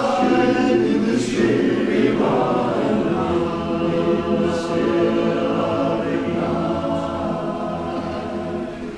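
Barbershop chorus singing a cappella in close harmony, sustaining a long chord that fades near the end.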